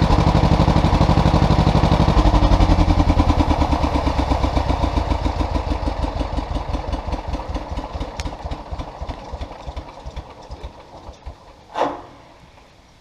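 A 1957 John Deere 420 crawler's two-cylinder gas engine shutting down: its evenly spaced firing beats slow and fade until the engine stops. A short sharp sound comes just before the end.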